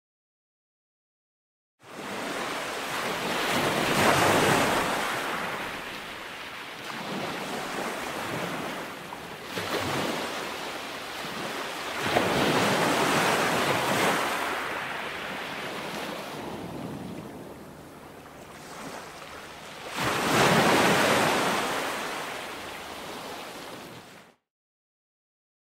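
Ocean surf and wind: a steady rush of breaking waves that swells and fades, loudest three times. It starts after a short silence and cuts off abruptly near the end.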